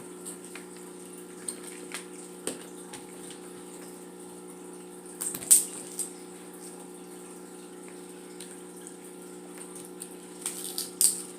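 Eating noises from a seafood boil: scattered short clicks and smacks, the sharpest about five and a half seconds in and a few more near the end, over a steady low hum.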